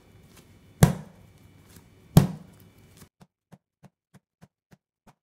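Bread dough slammed down on a stone benchtop twice, about a second and a half apart, as it is kneaded by lifting, bashing and rolling. After about three seconds the sound drops to faint, even ticks, about three a second.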